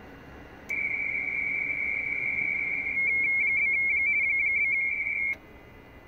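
Amateur radio RTTY signal from an Icom IC-7600 transceiver: a steady high tone starts abruptly about a second in, then from about halfway it warbles rapidly between two close pitches as the teleprinter data is keyed, and cuts off sharply near the end. Receiver band hiss runs underneath.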